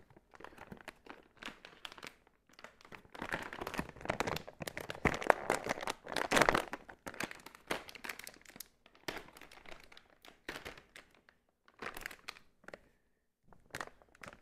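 Plastic bag of peeled garlic crinkling and rustling in irregular crackles as hands pull and twist at it, struggling to get it open; loudest about halfway through.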